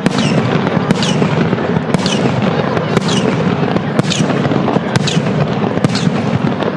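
Fireworks display in a heavy barrage: a dense, continuous rumble of shell bursts thick with sharp cracks and crackle. About once a second a sharp bang is followed by a short high sweep falling in pitch.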